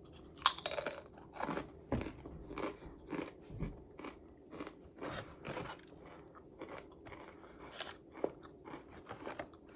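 Close-up chewing of crunchy fried food: a quick run of irregular crunches as it is bitten and chewed, starting about half a second in.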